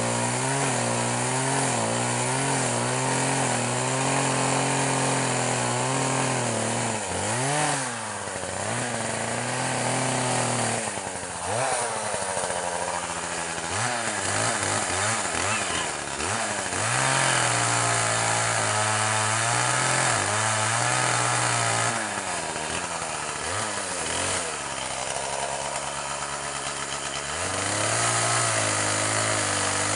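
Two-stroke chainsaw running at high revs while cutting into logs. Its engine note drops away several times and climbs back up as the throttle is eased and opened again.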